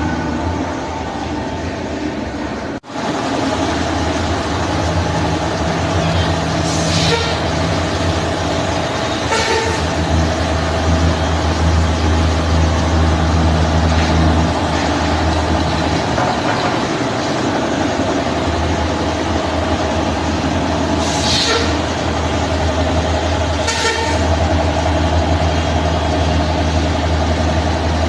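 Paper-pulp egg tray moulding machine running with a steady, loud low hum, and short air hisses four times.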